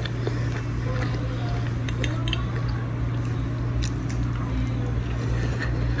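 A person chewing food, with a few faint clicks of a utensil, over a steady low hum.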